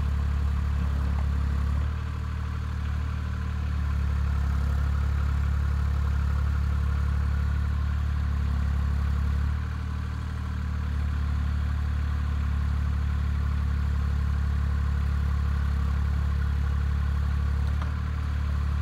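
Caterpillar 303C mini excavator's diesel engine running steadily while the boom, arm and bucket are worked. The engine note dips briefly three times.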